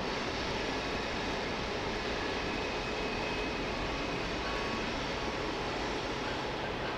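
Freight train cars rolling past, a steady noise of wheels on rail, with a faint high steady tone for a few seconds in the middle.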